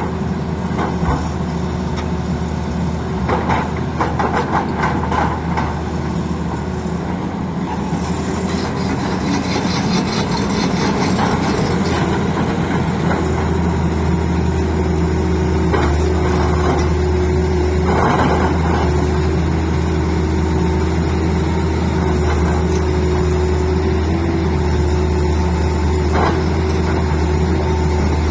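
Tata Hitachi excavator's diesel engine running steadily, with scattered knocks and clatter, a little louder from about halfway.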